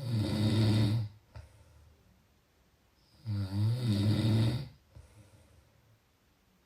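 A person snoring: two loud, low snores about three seconds apart, each lasting about a second.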